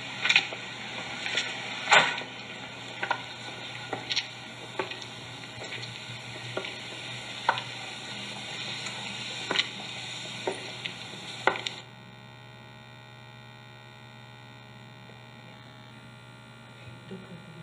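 A film clip's soundtrack played through the hall speakers: a steady hiss with irregular sharp clicks. It cuts off suddenly about twelve seconds in, leaving quiet room tone with a faint electrical hum.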